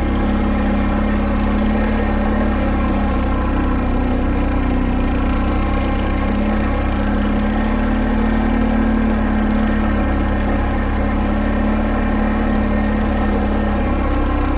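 Can-Am ATV engine running steadily at a low trail speed, heard from the rider's seat, with its pitch wavering slightly as the throttle shifts.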